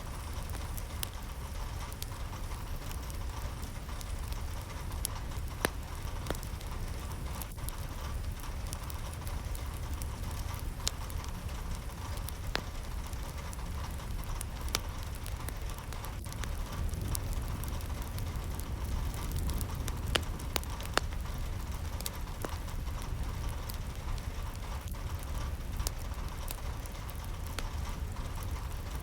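Steady rain falling, an even wash with a low rumble beneath and scattered sharp ticks of individual drops.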